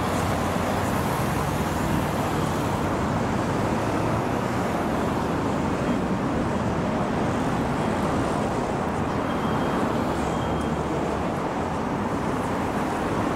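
Busy city street ambience: a steady wash of traffic noise from cars.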